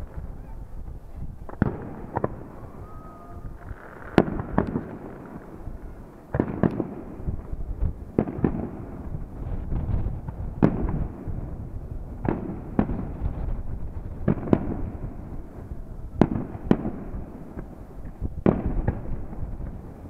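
Aerial fireworks shells bursting one after another, a sharp bang every second or two over a continuous low rumble, with a brief whistle about three seconds in.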